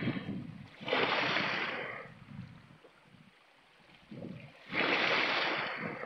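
Small sea waves washing and splashing over shore rocks, surging twice, about a second in and again near the end, with a quiet lull between.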